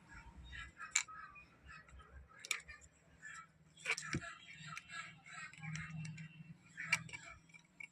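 Several sharp clicks and taps of a pen drive being handled and plugged into the USB socket of a JBL Bluetooth speaker, spread over the few seconds, under a faint low hum.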